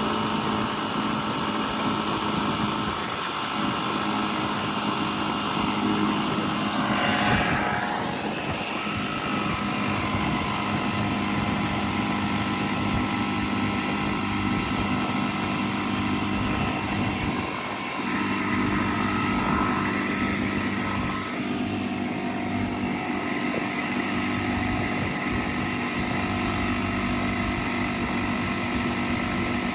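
Bostitch air compressor running steadily, its motor and pump giving a constant hum.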